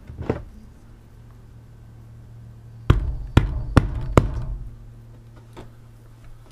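A hammer knocking on the van's ceiling panel at the roof fan: one light knock, then about three seconds in four sharp blows a bit under half a second apart.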